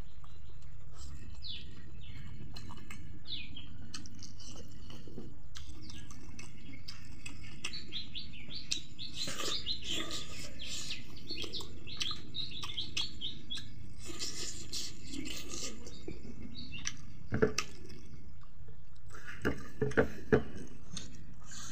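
Small birds chirping in runs of quick, short, falling chirps over a steady low background rumble, with a few sharp clicks near the end.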